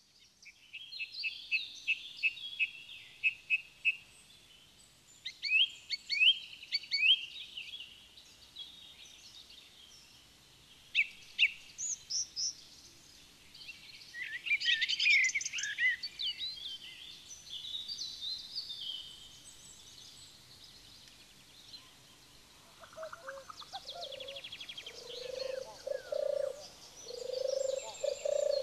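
Several wild birds singing over one another in a chorus of chirps, trills and quick repeated notes. About three-quarters of the way in, a lower call starts repeating roughly once a second beneath them.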